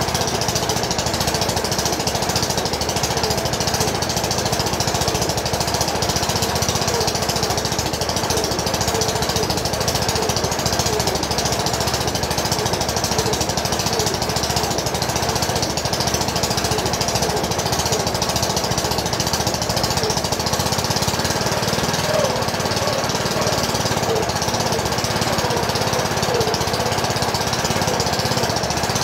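A small engine running steadily, with a fast, even knocking rattle.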